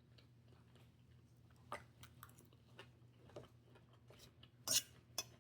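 Chewing and biting into a salad, quiet, with a few short crunches and clicks scattered through, the loudest about four and a half seconds in.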